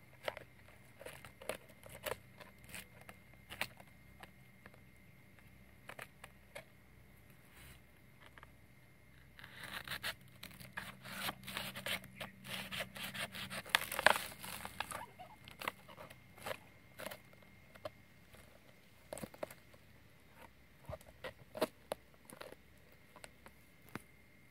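Banana leaf rustling and crinkling as it is handled, with scattered clicks and taps. About ten seconds in comes a denser stretch of scraping and cutting as a machete works on the leaf against split bamboo, with the sharpest crack near the end of that stretch.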